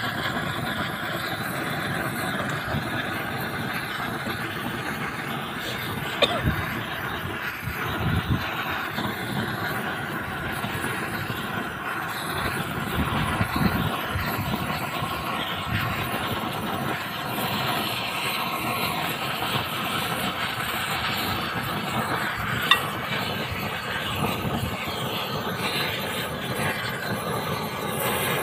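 Gas roofing torch running steadily with a continuous flame noise as it melts the edge of a torch-on bitumen membrane so the seam bonds, with a few short knocks of the metal trowel.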